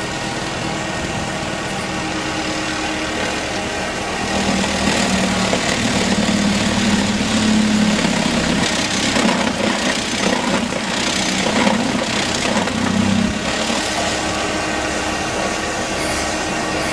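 Road-rail excavator's diesel engine running steadily. It works harder and louder for about ten seconds in the middle, with a rougher noise over the engine note, then settles back.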